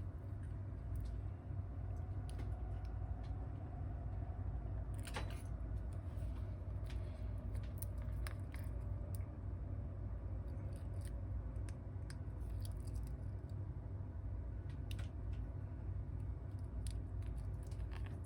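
Small hand tools working on an iPhone 8 Plus being opened for repair, giving scattered light clicks and ticks over a steady low hum.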